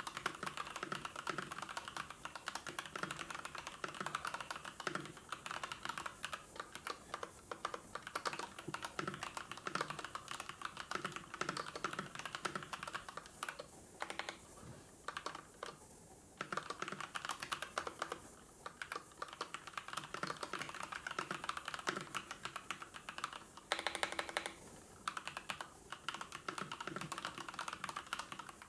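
Typing on a computer keyboard: a steady run of quick key clicks that thins out for a couple of seconds a little before halfway. About four-fifths of the way through there is a brief pitched sound, the loudest moment.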